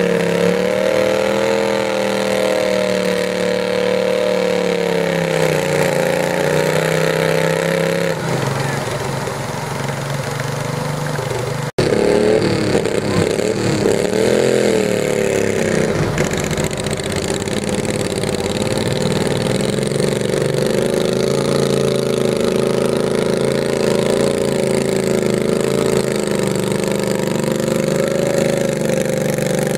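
Garden tractor engine running hard at high revs under pulling load, loud, its pitch wavering up and down. It cuts out for an instant a little under halfway through.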